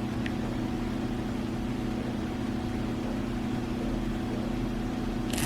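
A steady low hum, like a motor or appliance running, with a faint click just after the start and a brief rustle near the end.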